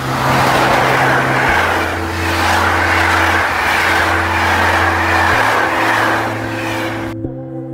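Passenger train hauled by an EP07 electric locomotive passing close by at speed: a loud, even rush of wheels and coaches rolling on the rails, which cuts off abruptly about seven seconds in. Background music chords play underneath.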